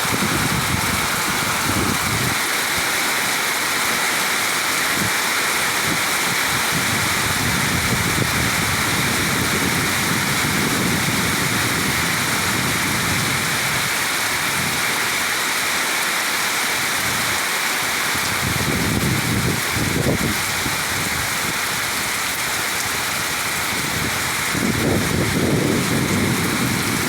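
Heavy rain falling steadily in a dense hiss, with low rumbling swells coming and going three times.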